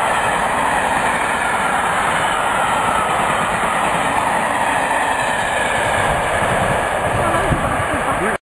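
Maroon passenger coaches of a steam-hauled express passing close by at speed, a steady loud rush of wheels running on the rails.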